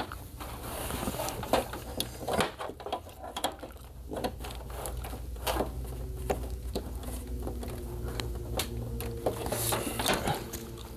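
Scattered light clicks and taps of handling and movement at a workbench, over a steady low hum.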